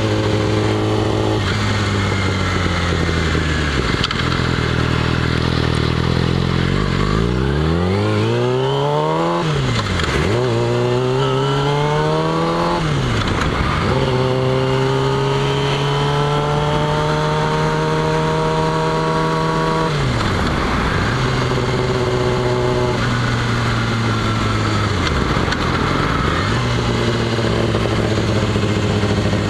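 Yamaha R6S inline-four sport-bike engine under way, heard from the rider's seat over wind noise. The revs fall away early on, then climb steeply twice, each climb cut off by a sharp drop as the rider shifts up. They then hold steady for a while, with two brief dips near the end.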